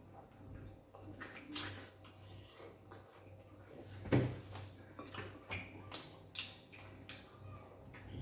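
Close-up eating sounds of fufu and egusi soup eaten by hand: a string of short, wet smacks and squelches from chewing and handling the food, with one louder knock about four seconds in.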